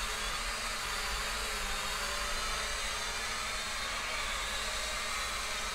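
E99 K3 Pro quadcopter drone flying, its propellers giving a steady buzzing whine.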